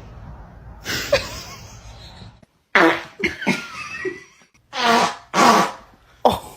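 A run of fart sounds, several short buzzy blasts one after another, with brief gaps between them.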